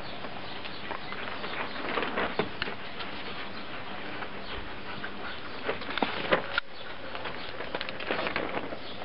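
Three-week-old wolfdog puppies jostling and suckling from their mother, with scattered short squeaks and snuffles over a steady background hiss.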